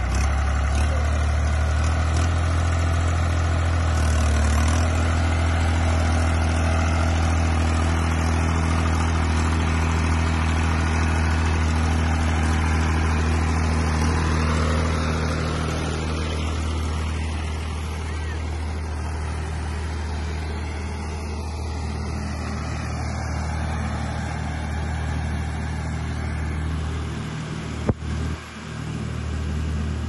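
Compact tractor's diesel engine running steadily under load while the trailed air-blast sprayer's blower fan rushes air, a loud even hiss over the engine's low hum.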